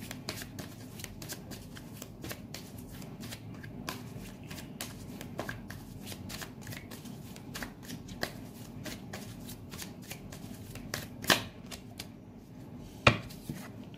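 A deck of tarot cards being shuffled by hand: a steady run of fast, light card clicks, with two sharper, louder snaps of the cards in the last few seconds.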